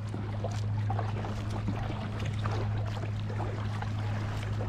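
Kayak paddle strokes on choppy open water: paddle blades dipping and water splashing and lapping, over a low steady rumble.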